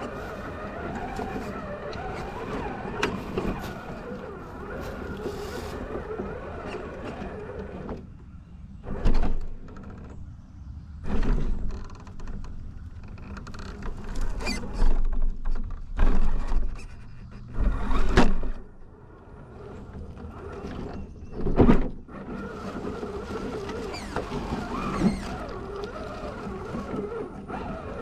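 Onboard sound of an Element RC Enduro Trailrunner scale RC trail truck driving over rough ground: a steady whir from its electric motor and drivetrain, broken in the middle by a run of loud knocks and thumps.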